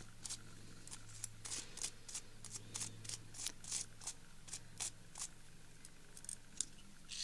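Small irregular clicks and ticks, a few a second, from hands handling a foamiran (craft foam) flower centre and a lighter, over a faint steady low hum.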